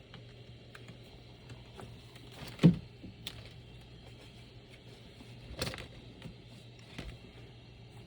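Sparse clicks of computer keyboard keys and handling, with a loud knock about two and a half seconds in and a smaller one near the middle, over a steady low hum.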